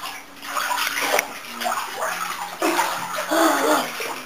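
Bathwater sloshing and splashing in a filled bathtub as a child moves around in it, in bursts. In the second half her voice makes short wordless sounds over the water.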